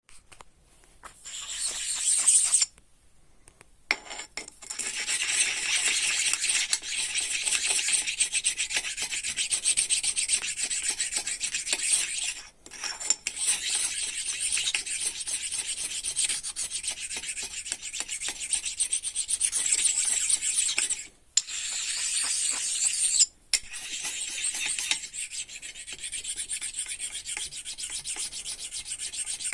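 Polishing stone rubbing against a workpiece: a rapid, scratchy abrasive rubbing that goes on with a few short breaks and eases off somewhat near the end.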